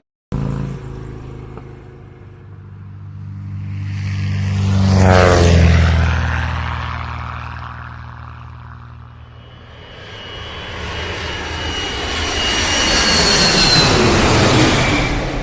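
An aircraft flying past twice, each pass swelling and fading. On the first pass, about five seconds in, the engine pitch drops as it goes by. On the second, near the end, a high whine slides down in pitch.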